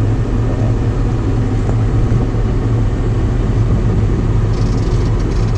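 Engine of a John Deere farm machine running steadily at harvest, a constant low drone. A few brief light ticks or rattles come near the end.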